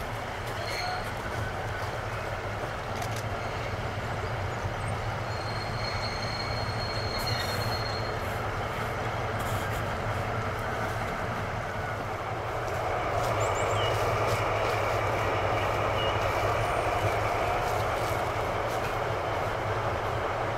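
DR class 118 diesel-hydraulic locomotive (118 757) approaching at low speed, its engine drone steady and growing louder about two-thirds of the way in. A brief faint wheel squeal comes partway through.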